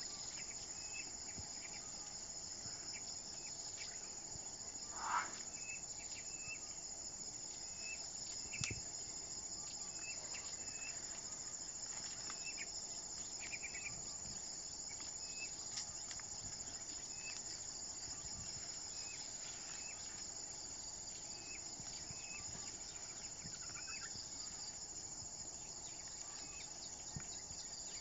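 Steady insect chorus: a continuous high trilling, with short chirps repeating about once a second. About five seconds in, a brief rising call stands out as the loudest sound, and a single sharp knock comes near nine seconds.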